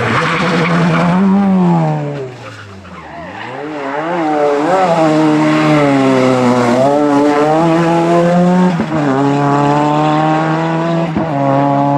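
Rally car engine heard approaching, its note climbing and dropping repeatedly as the driver accelerates through the gears and lifts off. There are a couple of sharp cracks in the last few seconds.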